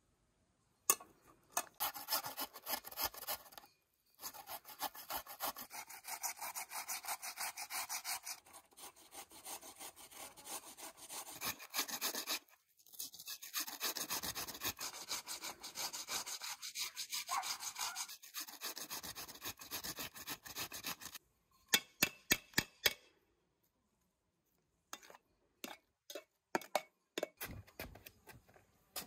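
Raw potatoes grated by hand on a metal grater over an enamel bowl: fast, even rasping strokes with two short pauses, then a few sharp knocks in the last several seconds.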